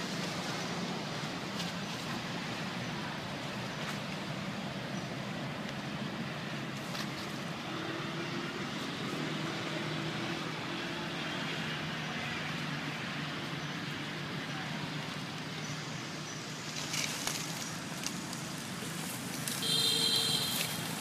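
Steady background hum, then near the end a few short, high-pitched squeals from a baby pig-tailed macaque as a young monkey grabs and wrestles it.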